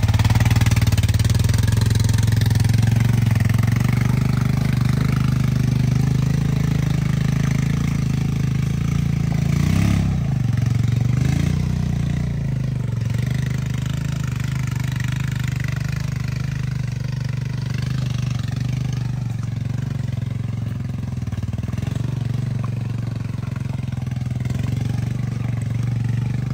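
A Honda Foreman ATV's single-cylinder four-stroke engine and a dirt bike's engine run at low speed as the machines crawl along a rough trail. About ten seconds in, the engine note dips and then rises again, and the sound slowly gets quieter as they move away.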